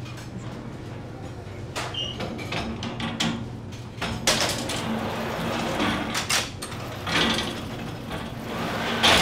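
Oven loader of a Pavailler deck oven sliding on its metal rails as loaves are loaded. It makes repeated rushes of sliding and scraping noise, loudest near the end, over a steady low hum of bakery machinery.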